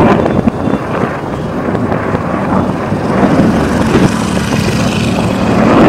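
Distant firecrackers and fireworks going off across a city, a continuous din of many overlapping pops and bangs, with wind on the microphone.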